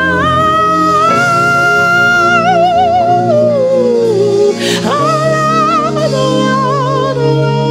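Gospel worship music: a single voice sings long held notes with vibrato, slides down about three seconds in, then starts a new phrase, over sustained instrumental accompaniment.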